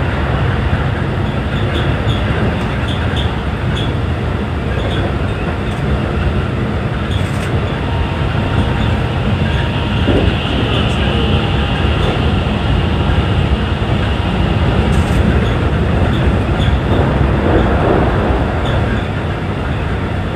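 Keikyu New 1000 series electric train running, heard from inside: steady rumble of the wheels on the rails and running gear.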